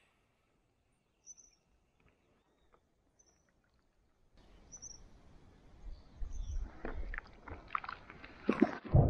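Near silence for about four seconds, then muffled water rumbling and sloshing with irregular knocks, heard through a waterproof camera housing dipped at and under the water surface, growing louder near the end.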